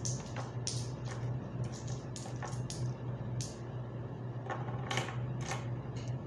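Metal coins clinking against each other as they are picked up and handled one by one: about a dozen sharp, irregular clinks over a steady low hum.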